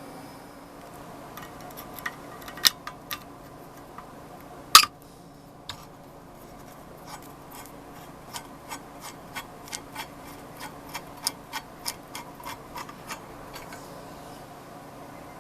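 Sharp clicks and taps from hands and tools working on the cast iron nutcracker. There is a loud knock about five seconds in, then a run of about two to three clicks a second, over a faint steady hum.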